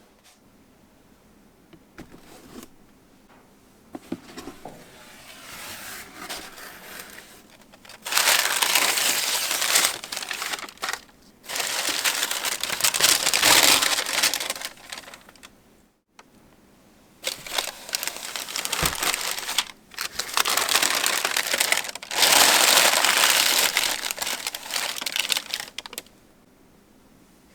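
Paper crinkling and rustling as it is handled, in two long spells of several seconds each with short pauses, after quieter scattered rustles at the start.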